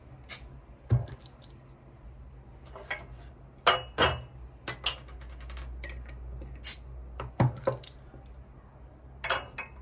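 Glass and hard dishware being handled, a scattered series of sharp clinks and taps, some with a brief ring, over a steady low hum.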